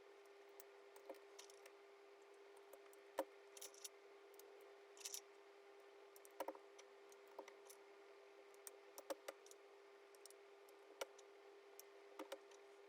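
Gateron Yellow mechanical keyboard switches being pressed into the GAS67 keyboard's plate and PCB: irregular short plastic clicks and snaps, some with a brief scrape, over a faint steady hum.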